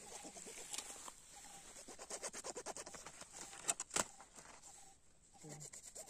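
Kitchen knives scraping and scoring the skin of whole fresh fish, a quick series of faint scratchy strokes with two sharp clicks of the blade about four seconds in.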